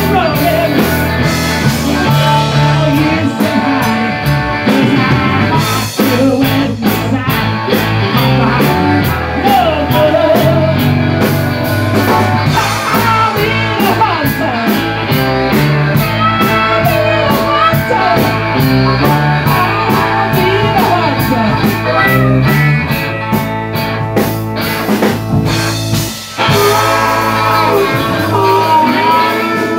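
Live band playing loud and steady: electric guitars over a drum kit, with a man singing into a microphone.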